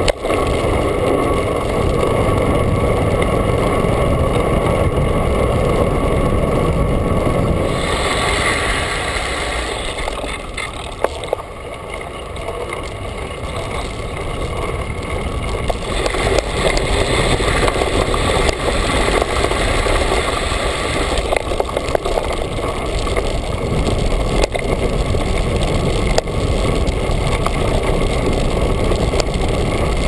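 Wind rushing over a handlebar-mounted camera's microphone while a Ritchey Breakaway cyclocross bike rolls along, with tyre noise and small rattles from the bike and mount as it rides from pavement onto a snow-covered trail.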